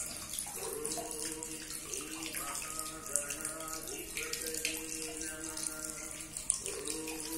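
Small decorative tabletop fountain running, its water steadily splashing and trickling into a plastic basin.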